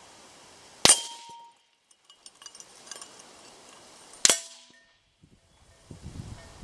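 Two shots from a Tikka T3X bolt-action rifle about three and a half seconds apart, each followed by a brief metallic ring from a steel target plate. Light clicks come between the shots.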